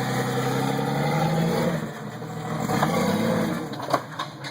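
1994 Jeep Cherokee's engine working on a rocky off-road climb. It runs steadily, eases off about two seconds in, then revs up again, with a few sharp knocks near the end.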